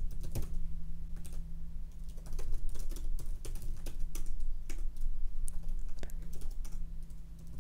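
Typing on a computer keyboard: irregular runs of keystrokes with short pauses, over a steady low hum.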